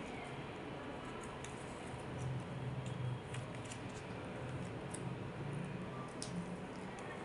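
Faint scattered clicks and ticks of hands handling tape and supplies while a fistula needle is taped in place, over a low steady hum that grows louder for a few seconds in the middle.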